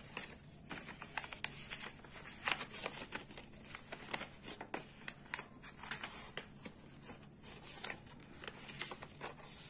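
A sheet of paper being folded and handled, rustling and crinkling in short, irregular crackles.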